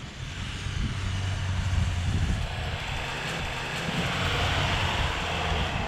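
Car engine working under load as it drives through soft beach sand, a steady low engine note with a hiss growing louder from about halfway through.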